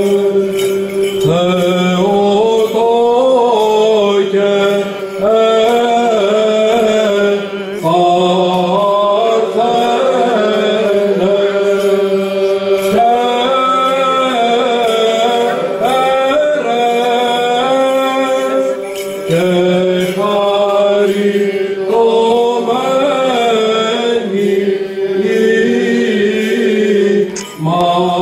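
Male voice chanting a Byzantine Orthodox hymn into a microphone: a melody that moves in phrases over a held low drone note, with short breaks between phrases.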